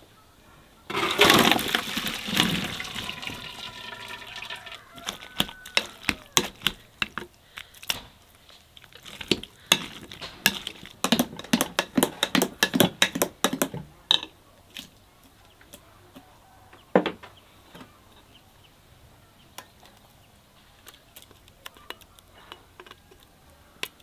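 Hot liquid poured out of a pot and splashing for a few seconds, then a whisk clicking rapidly against a glass bowl as liquid is stirred, thinning out to occasional clinks.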